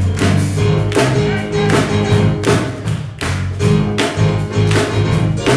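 Gospel band playing an instrumental passage: bass line and drum kit with steady beats, no singing.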